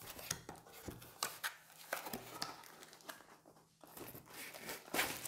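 Cardboard packaging insert being handled and opened, with rustling and crinkling of plastic wrapping, in an irregular run of scrapes and taps; the loudest rustle comes near the end.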